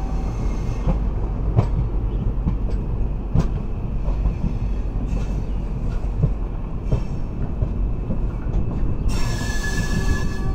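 Passenger train running, heard from aboard: a steady low rumble with irregular knocks of the wheels over the rails. About nine seconds in comes a hiss with a thin, steady high squeal that lasts about a second.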